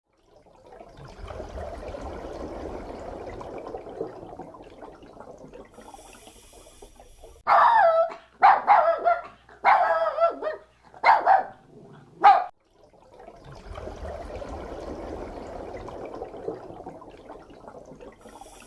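A dog giving about five loud yelping barks in quick succession in the middle, over a low noisy background.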